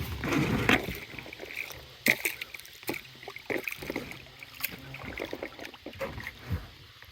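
Scattered knocks and clatter of fishing gear being handled in a boat, as baited pool-noodle jugs are readied and dropped out.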